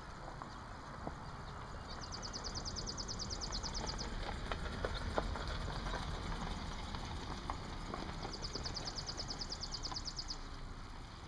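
A horse's hoofbeats at a trot on packed arena footing, growing louder toward the middle as it passes close. A high, rapid trill sounds twice, about two seconds in and again about eight seconds in.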